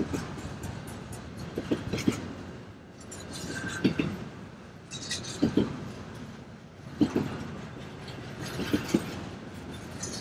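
Freight train cars rolling past slowly, their wheels knocking over a rail joint in close pairs about every one and a half seconds, over a steady rumble.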